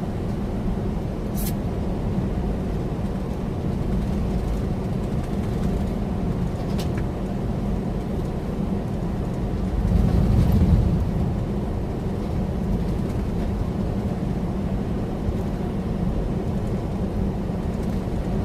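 Steady low drone of a loaded semi truck cruising at highway speed, engine and road noise heard inside the cab. It swells louder for about a second around ten seconds in, with a couple of faint clicks.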